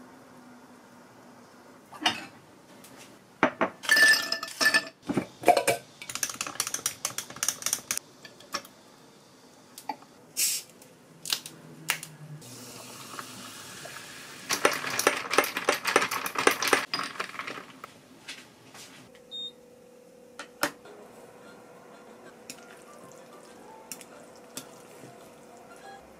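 Clinks and rattles of dishes and glassware at a kitchen counter, then sparkling water poured into a glass of ice, fizzing and crackling for about three seconds just past halfway. A few soft clicks of utensils follow.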